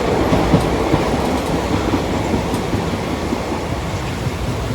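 Passenger train running, heard from inside the coach: a steady rumble of the wheels and carriage on the track.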